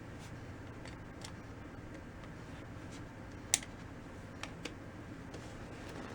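A few light, sharp clicks of small hard parts being handled, the loudest about three and a half seconds in, over a steady low hum.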